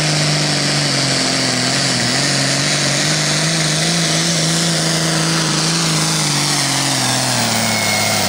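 John Deere 4320 diesel tractor engine running flat out as it pulls the weight-transfer sled. The engine note holds steady, dips briefly about two seconds in, and falls away near the end.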